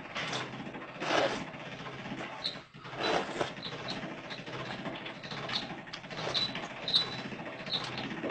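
A person eating: chewing noises with a few louder bursts, the strongest just after the start, about a second in and about three seconds in, between them a run of small ticks.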